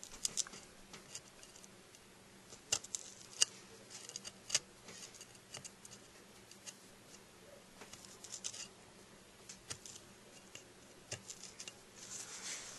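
Skookum Bushtool knife cutting into a dried goldenrod gall: irregular small clicks and short scrapes as the blade shaves and snaps the woody gall, carving the notch for a hand-drill hearth.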